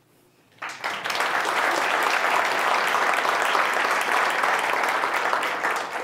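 Audience applauding at the end of a talk: a steady patter of many hands clapping that starts about half a second in and begins to die away near the end.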